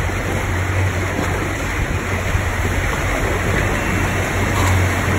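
Tour boat's engine running steadily at low speed, a constant low hum under a rush of water against the hull and rocks.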